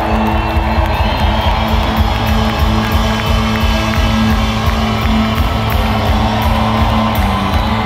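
Rock band playing live and loud through a concert PA, with electric guitars, a heavy bass and drums, while the crowd cheers and whoops over it.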